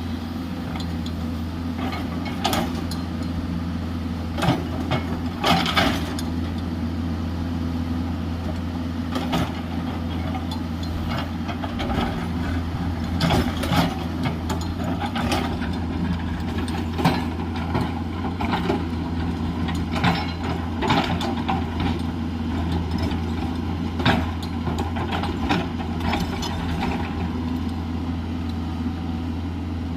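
JCB 210LC tracked excavator's diesel engine running steadily, with irregular sharp knocks and clanks from the machine as it works, heaviest in clusters about five seconds in and again from about thirteen seconds on.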